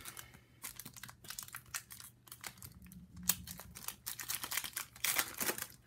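Wrapper of a 2016 Panini Prizm trading-card pack crinkling in a run of short, sharp rustles as the pack is handled and torn open, loudest a little after five seconds in.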